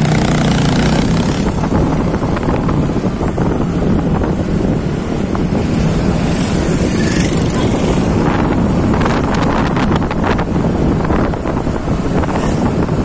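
Wind buffeting the microphone on a moving two-wheeler, with engine and road noise underneath and a run of short rattles about two-thirds of the way in.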